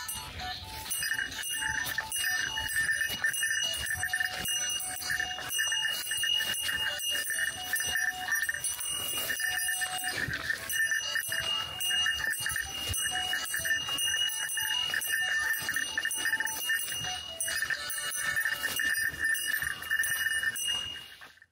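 Yobikomi-kun Mini DX in-store promotional music player playing its electronic jingle loud and shrill, a thin bell-like beeping melody.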